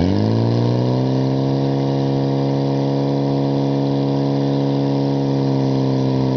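Portable fire pump engine running at high revs, its pitch rising over the first second and then holding steady as it drives water through the hoses to two spraying nozzles.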